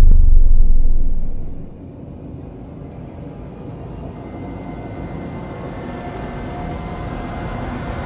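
Cinematic logo-intro sound design: a deep boom dies away over the first second and a half, then a low rumbling drone with faint held tones above it slowly swells.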